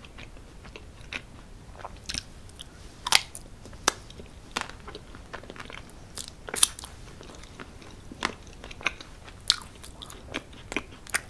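Close-miked mouth sounds of a person chewing soft chocolate and strawberry mousse cake: wet clicks and smacks at irregular intervals, the sharpest about three and six and a half seconds in.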